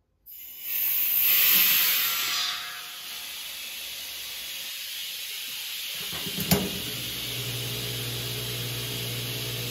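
Compressed air hissing as the ball valve on a compressor tank charged to 150 PSI is opened and air rushes into the copper supply line. The hiss is loudest for the first couple of seconds, then settles to a steadier hiss of air leaking from the new line. About six and a half seconds in there is a sharp click, and a steady electric hum starts.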